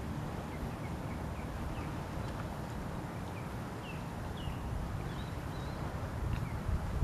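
Wind noise on the microphone, with short, high bird chirps repeating about twice a second.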